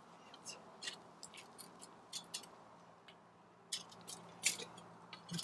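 Faint scattered clicks and scrapes of a stick or knife working through campfire coals and ashes to dig out baked apples, busiest about four seconds in.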